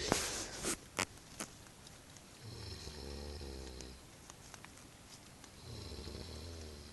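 A person snoring: two low, rasping snores of about one and a half seconds each, about three seconds apart. A few sharp clicks sound in the first second and a half.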